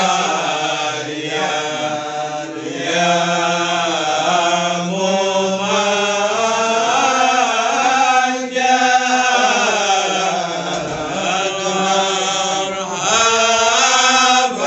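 A group of men chanting marhaban, Malay Islamic devotional praise verses, together in unison, with long held notes that slide up and down in pitch.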